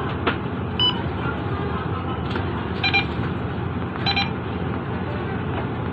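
Bus fare card reader beeping three times, a second or two apart, as boarding passengers tap their cards, over the steady low hum of the idling Mercedes-Benz Citaro bus.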